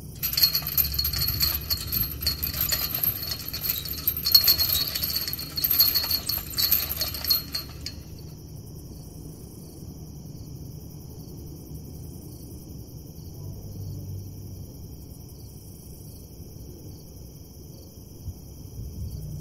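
Metal jangling and rattling with many sharp clicks, starting suddenly and stopping about eight seconds in, the sound of a chain-link gate being handled. After that only a steady low hum and a faint high hiss remain.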